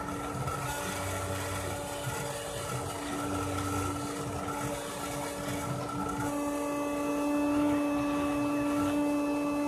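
Rotary tool spinning as the spindle of a homemade CNC engraver, giving a steady whine, while the laser-printer stepper motors driving the X and Y axes buzz in short irregular moves as it engraves.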